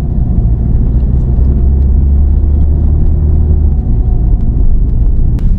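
Steady low rumble of a car's engine and tyres heard from inside the cabin while driving, with a few light clicks and ticks.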